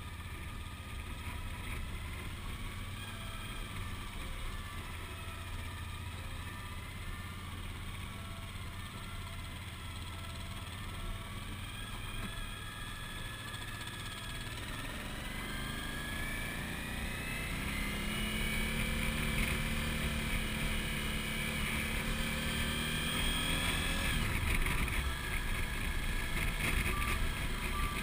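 Suzuki V-Strom's V-twin engine running at low road speed. After about fifteen seconds it rises in pitch and gets louder as the bike accelerates.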